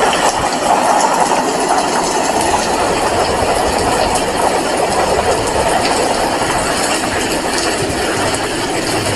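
Heavy rain falling, a steady dense hiss with no breaks.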